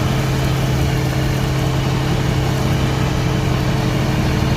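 Heavy diesel engine of a harvest machine running loud and steady, a constant deep drone.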